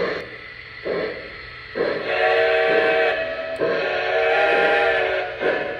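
Lionel L1 Mikado model steam locomotive's onboard sound system blowing its steam whistle: two long chords, the second following a brief break. Short chuffs from the same sound system come about once a second before and after the whistle.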